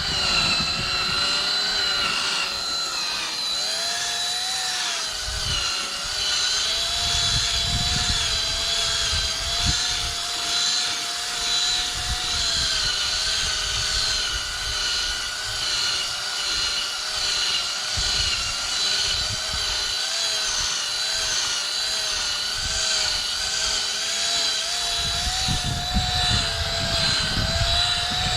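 Power tool motor spinning a buffing pad to polish a plastic headlight lens, running steadily with a whine whose pitch wavers slightly as the pad is pressed on and eased off.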